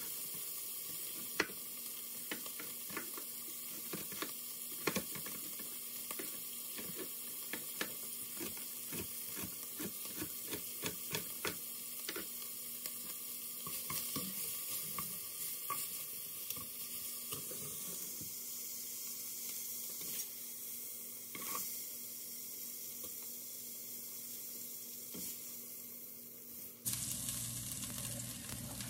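Beef cubes searing in hot fat in an enameled cast-iron Dutch oven: a steady sizzle with frequent small pops and crackles.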